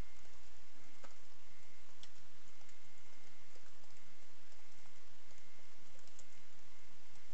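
Computer keyboard typing: scattered, irregular light key clicks over a steady background hiss.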